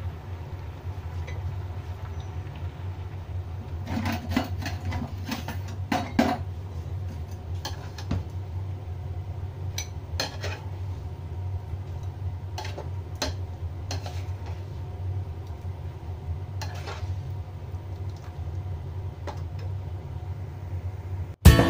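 A metal utensil clinking and scraping against a pan and a ceramic bowl as blanched lotus root slices and black fungus are scooped out of their water, in scattered strokes over a steady low hum. Guitar music cuts in right at the end.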